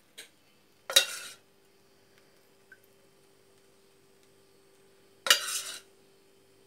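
A metal ladle clinking sharply against a stainless steel pot twice, about a second in and again about five seconds later, each strike ringing briefly, as syrup is scooped out to pour over a tray of baked pastry.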